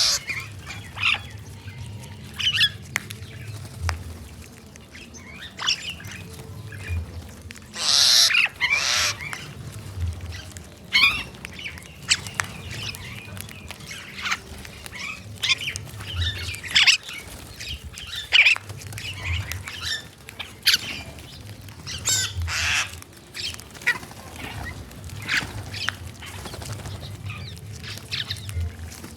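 Crows and other birds calling in short, harsh squawks on and off, with the loudest call about eight seconds in, over a low rumble.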